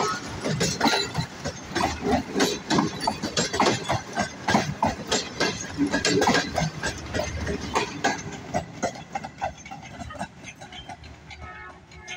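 Passenger train coaches passing close by at slow speed, their wheels clattering and knocking over the rail joints. The clatter thins out and fades over the last few seconds as the end of the train moves away.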